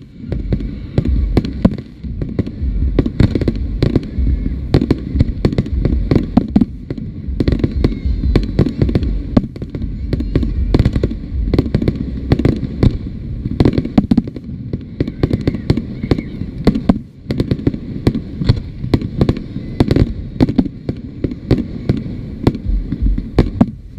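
Fireworks display: aerial shells bursting in quick succession, many sharp bangs at times several a second, over a continuous low rumble, with a brief lull about seventeen seconds in.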